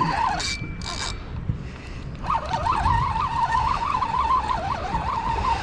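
Spinning reel whining with a wavering pitch while a hooked fish is on the line, running steadily from a little over two seconds in, after two short bursts of hiss near the start. Wind rumbles on the microphone underneath.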